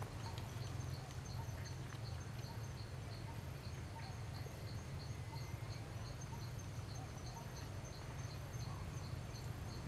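Insects chirping in an even, steady rhythm of about two or three high pulses a second, over a steady low rumble.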